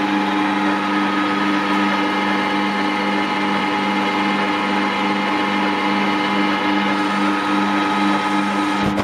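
Metal lathe running steadily under power with a constant whine and hum, while a small turning tool takes a light cut on the spinning workpiece.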